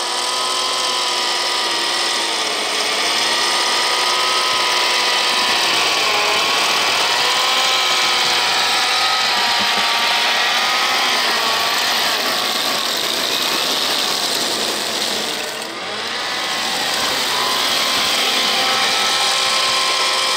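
Electric motors and gearing of a 3D-printed radio-controlled tracked snow blower running its auger and blower, a steady whine whose pitch wavers up and down as it throws snow from the chute. The sound dips briefly about three quarters of the way through.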